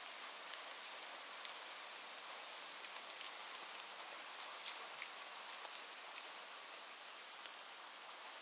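Steady rain falling, a soft even hiss with many small drops pattering and ticking throughout.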